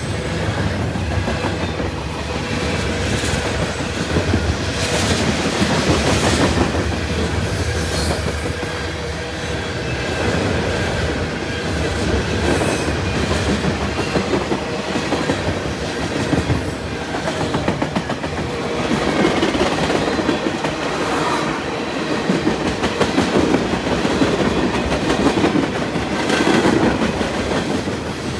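Freight train cars rolling past, wheels clicking over rail joints in a steady clickety-clack.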